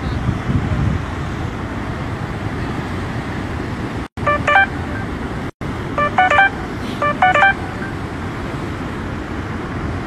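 Three short bursts of quick electronic beeping, each a rapid run of several pitches, over a steady rushing background noise. The first burst comes about halfway through and two more follow over the next three seconds. The audio drops out completely twice, for a moment each, just before and after the first burst.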